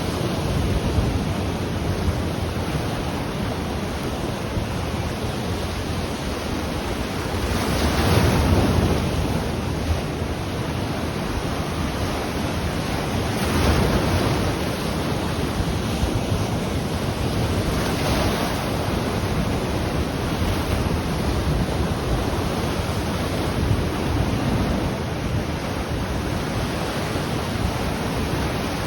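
Ocean surf washing on the shore in a steady rush, with a wave breaking and swelling louder every five seconds or so.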